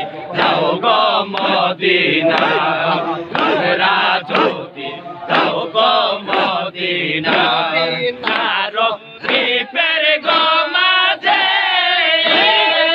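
A crowd of men chanting a Sufi zikr together, in loud, rhythmic repeated phrases that turn into more drawn-out sung lines near the end.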